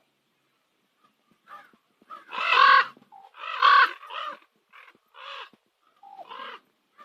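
Common raven giving a series of harsh, croaking calls: two loud, long calls a couple of seconds in, then several shorter, fainter calls.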